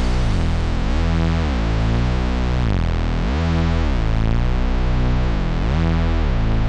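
Electronic background music: a sustained low synthesizer bass with a repeating sweep that rises and falls about once every second.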